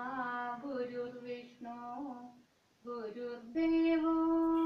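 A woman's voice singing a Sanskrit sloka unaccompanied, in long held notes. There is a short pause about two and a half seconds in, and then the voice comes back on a higher, louder note.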